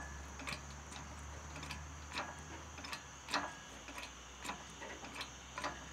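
Light, irregular clicks and knocks, roughly one a second, from hands working on the old truck's rusted cab and its fittings.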